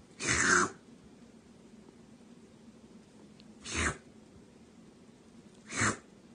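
A kitten sneezing three times: short, sharp sneezes about a second in, near the middle and near the end, the first the loudest.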